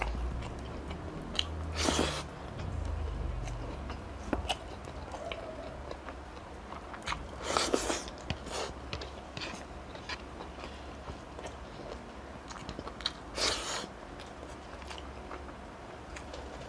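Close-miked chewing of a mouthful of grilled meat and rice, mouth closed, with many small wet clicks and smacks. Three or four louder, longer noisy sounds stand out among them.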